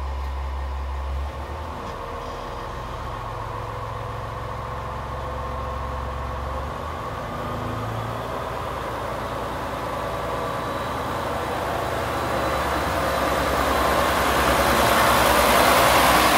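Red KiHa 47 diesel railcar's engine running at the platform, its note changing about a second in as the train starts to pull away. The engine and rolling noise grow steadily louder as the cars pass close by near the end.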